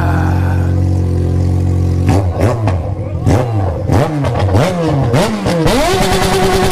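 Motorcycle engine idling steadily, then revved in a quick run of short blips, each rising and falling. Near the end it is held at high revs.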